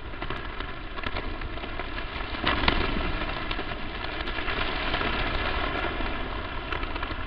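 Crackling static noise with a low hum underneath, steady throughout, with a louder surge of crackle about two and a half seconds in.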